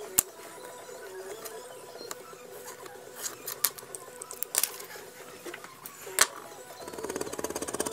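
Soft background music under a few sharp clicks of small hand tools being picked up and set down on a cutting mat. Near the end a fast, even scratching rhythm starts up.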